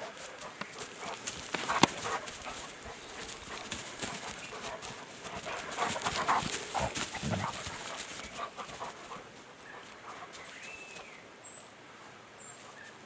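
Two Maremma sheepdogs playing on round hay bales: paws scrabbling and scuffing through the hay in quick irregular rustles, busiest around six to seven seconds in. Birds chirp faintly near the end.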